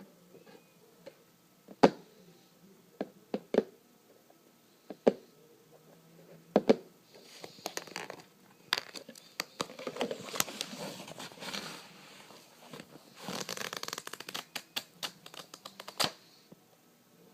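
Close-up handling sounds: scattered sharp taps and clicks, then longer stretches of crinkling and rustling from about seven seconds in.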